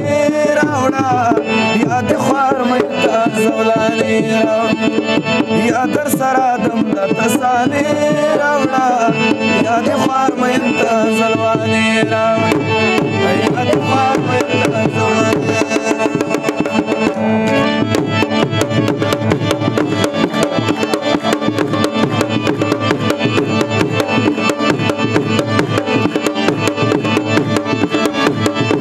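Male voice singing Pashto tapay in a long, bending melodic line over harmonium and tabla. A little past halfway the voice drops out and the harmonium and fast, even tabla strokes carry on as an instrumental interlude.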